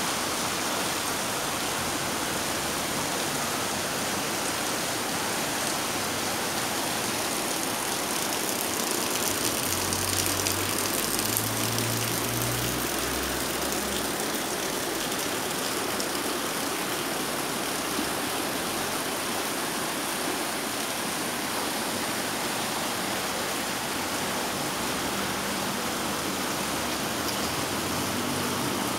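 River water rushing steadily over rocks, an even, unbroken noise. A low hum rises and fades between about ten and fourteen seconds in.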